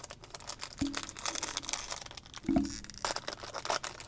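Foil trading-card pack wrapper crinkling and crackling as it is handled and torn open, the crackle growing denser near the end.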